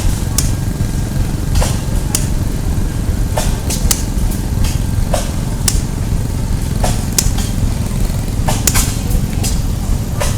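Blacksmith's hammer striking metal on an anvil in irregular, ringing blows, roughly one or two a second, over a steady low rumble.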